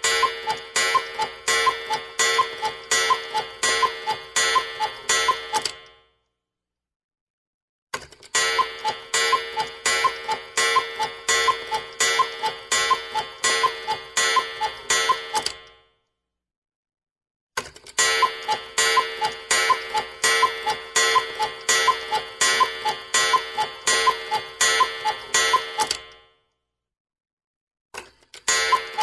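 Cuckoo clock sounding in runs of quick, evenly spaced strikes, about three a second, each with a ringing tone. Each run lasts around eight seconds and is followed by a pause of about two seconds: one run ends near six seconds in, two full runs follow, and another begins near the end.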